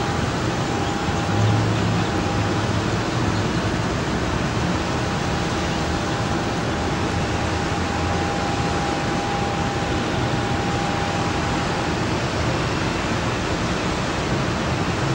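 A steady rushing noise with no distinct bangs or events, and a faint thin tone that comes and goes.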